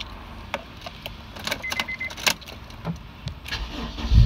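Key clicks and a brief run of electronic beeps as the ignition of a Honda S2000 (AP1) is switched on, then near the end the starter cranks briefly and the F20C four-cylinder engine catches and fires, starting smoothly.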